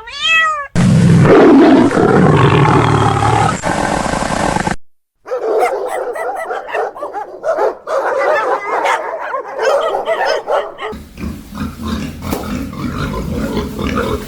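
A string of different animal calls cut one after another: the end of a cat's meow, then a loud growl-like call lasting about four seconds, and after a brief break a stretch of busy, wavering animal calls that turns lower-pitched about two-thirds of the way in.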